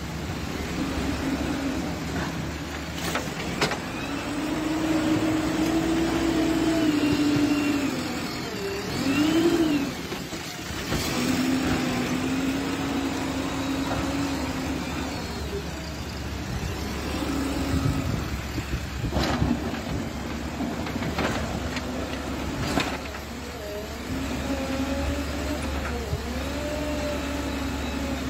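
Diesel engine of a JCB backhoe loader revving up and down in long swells as it works, with a few sharp metallic clanks.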